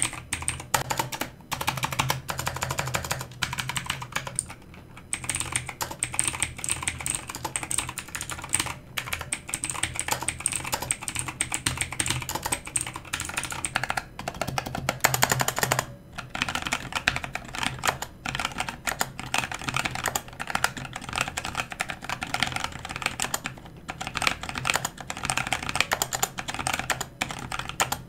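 Fast typing on Qsenn Ares Q34 one-handed mechanical keyboards with Outemu switches, a typing-sound demonstration of the switch versions in turn, starting with the clicky blue switches. It comes in dense runs of keystrokes with a few short pauses between them.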